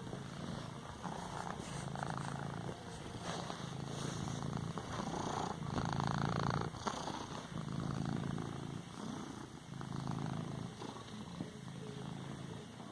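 Domestic cat purring close up, the purr swelling and fading with each breath about every one and a half to two seconds. A few soft scratches come from its paws kneading a pillow.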